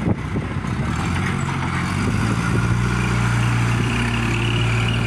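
Heavy diesel engine of a truck or earthmoving machine running steadily, its low hum growing louder and fuller about two seconds in, with a brief knock at the start.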